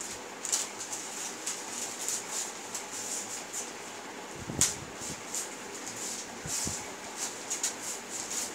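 Packaging rustling and crinkling in irregular short bursts as a boxed item is handled and opened, with one sharper click about four and a half seconds in.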